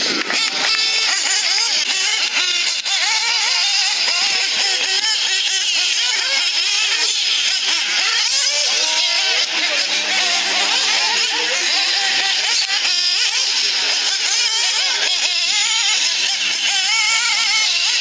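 Nitro RC buggy engines racing, a high-pitched whine from several engines at once that keeps rising and falling with the throttle.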